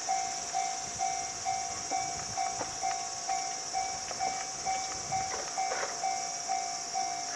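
Japanese railway level-crossing warning bell sounding its repeated electronic ding, about two strikes a second, over a steady high hiss.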